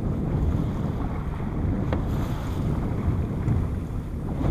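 Small motorboat under way: a steady rumble of motor and hull running through choppy water, with wind buffeting the microphone.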